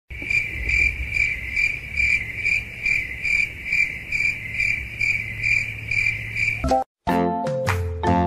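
A single cricket chirping in an even, steady pulse about twice a second, over a low rumble. The chirping cuts off near the end and light music starts.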